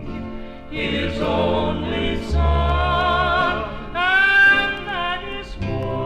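Gospel vocal group singing in harmony with instrumental backing and a steady bass line; about four seconds in a high voice swoops up and holds a note with vibrato.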